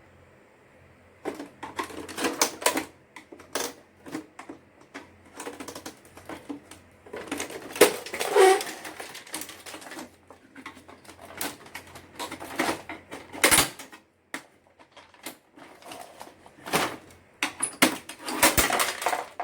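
Irregular plastic clicks, knocks and rattling from the housing and parts of an HP PSC 1610 all-in-one inkjet printer being pulled apart by hand, with sharp snaps about two-thirds of the way through and again near the end.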